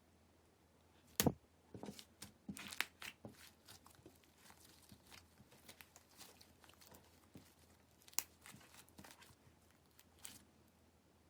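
Clear slime being worked by hand, making sharp pops and crackles. One loud pop comes about a second in, then a quick run of crackles, with scattered pops later.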